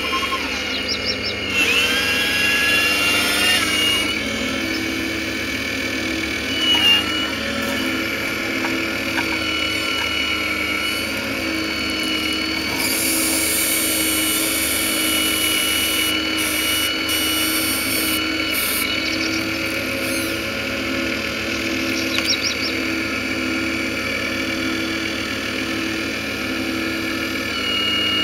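Radio-controlled scale model Hitachi Zaxis 870 LCH excavator working, its drive making a steady electric whine with a pulsing hum and shifts in pitch as the boom and bucket move.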